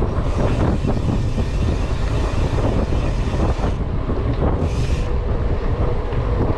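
Wind buffeting the microphone over the rumble of a Trek Marlin 7 mountain bike's tyres rolling fast on rough, cracked concrete, with a short burst of hiss about five seconds in.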